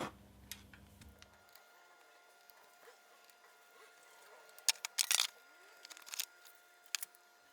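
Sharp clicks and knocks of tools and parts being handled at the lathe while draining the gearbox oil, with a quick cluster about five seconds in and a few more near the end. A low hum in the background stops shortly after the start.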